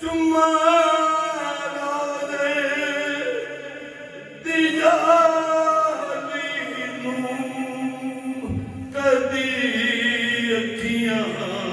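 A man singing a Punjabi naat solo, unaccompanied, in three long drawn-out melodic phrases.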